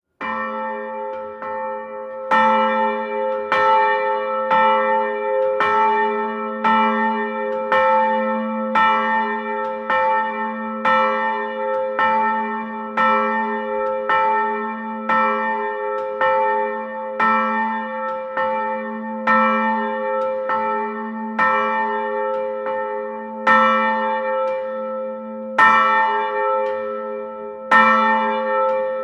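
Church bell ringing over and over, about one stroke a second, each stroke's hum carrying on under the next. The strokes are softer for the first two seconds and then come at full strength.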